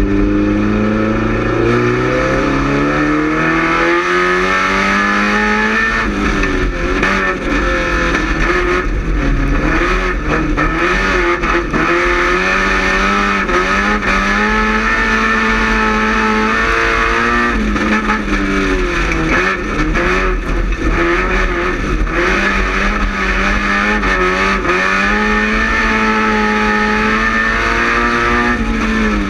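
Quad 4 four-cylinder engine of a small-class oval race car running hard, its pitch climbing steadily for about the first six seconds, then falling and rising again and again as the driver backs off and gets back on the throttle.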